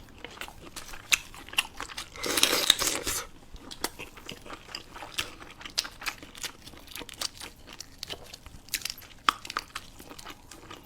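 Close-miked eating: a person chewing with many small crunchy, wet clicks, and one dense noisy burst lasting about a second, about two seconds in.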